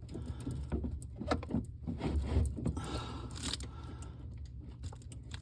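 Scattered light clicks and rattles of hand work as a masking-taped stack of pennies is fitted into the plastic lever mechanism of a refrigerator's ice dispenser, over a steady low hum.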